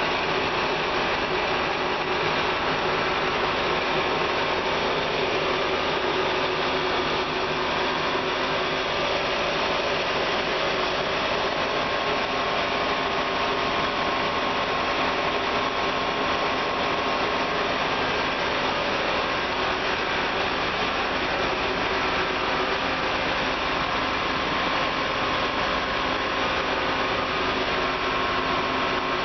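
Air blower of a biomass gasifier running steadily: an even whirring drone with a few constant whine tones in it, unchanging throughout.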